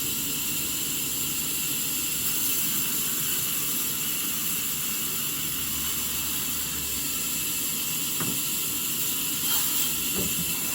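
Sawmill machinery running steadily, a continuous hissing whir with no change in level.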